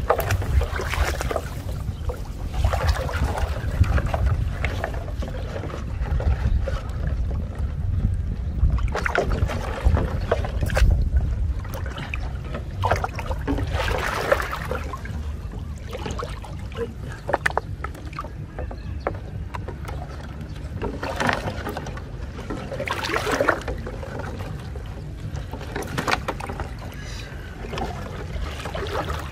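Shallow muddy water sloshing and splashing in irregular bursts as a man wades and works a trap of tied plastic bottles through it by hand, over a steady low rumble of wind on the microphone.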